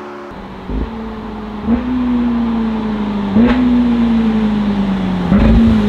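Ferrari F8's twin-turbo V8 through a Novitec aftermarket exhaust, going down through the gears. About four times the revs jump up with a sharp pop from the exhaust, then fall away slowly until the next downshift.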